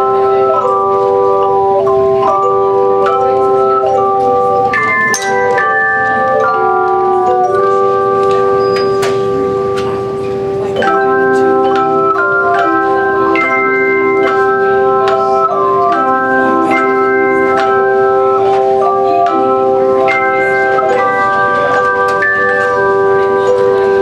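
A children's bell choir ringing hand-held bells in a tune: many notes ring out and hold over each other in chords above a low held note. The playing thins briefly about ten seconds in, then goes on.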